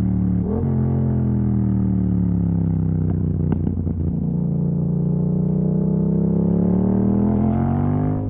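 Yamaha MT-07's parallel-twin engine through an exhaust with its dB killer removed, under way. The engine note sags for a few seconds, then climbs steadily as it accelerates, with a brief break in the note about half a second in and another right at the end, where gears change.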